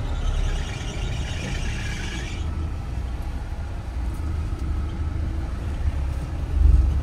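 Low engine and road rumble inside the cabin of a Mahindra SUV driving slowly along a lane. A high hiss runs over it for the first two and a half seconds, and a heavy low thump comes near the end, like the vehicle going over a bump.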